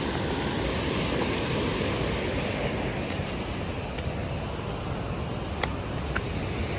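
Steady rush of a waterfall and rapids, white water pouring over rock.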